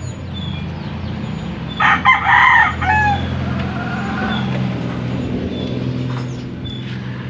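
A rooster crows once, about two seconds in, the loudest sound here, over a steady low hum of an idling engine.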